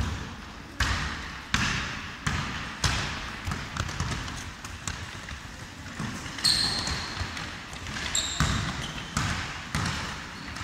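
Basketball being dribbled on a wooden gym floor: a steady run of bounces, a little under a second apart, each echoing through the hall. A couple of short, high sneaker squeaks come about two-thirds of the way through.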